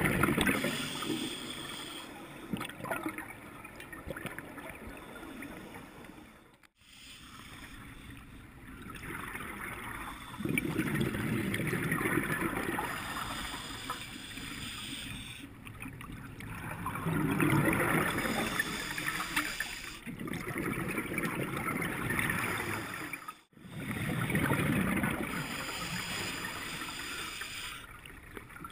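Scuba divers breathing through regulators underwater: bursts of exhaled bubbles gurgle and rumble every few seconds, broken by two sudden brief dropouts.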